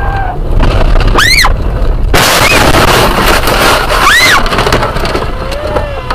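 Car crashing into a tractor: a high scream about a second in, then a sudden loud crash of impact and shattering windscreen glass lasting about two seconds, with a second scream during it.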